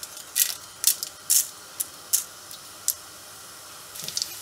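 Whole spices (cumin seeds, black cardamom, cinnamon stick, bay leaf) spluttering in hot oil, tempering for a curry. A run of short hissing spits about every half second, easing to a quieter sizzle.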